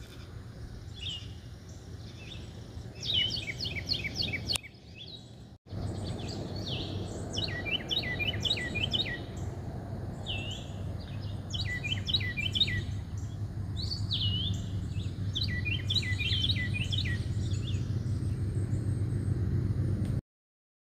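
Songbirds singing: repeated phrases of quick falling chirps, several birds overlapping, over a low steady rumble. There is a brief break about five seconds in, and the sound cuts off near the end.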